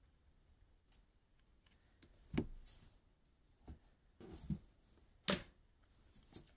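A handful of sharp clicks and taps from small hand tools being handled on a tabletop: a remote control's circuit board and needle-nose pliers picked up and set down. The two loudest knocks come about two and a half and five seconds in.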